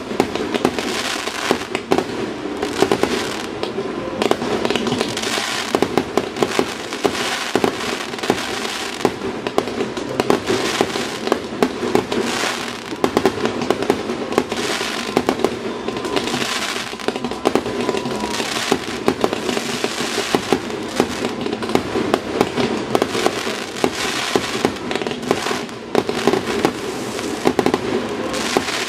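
Fireworks display: aerial shells launching and bursting in quick succession, a dense unbroken run of sharp bangs, several a second.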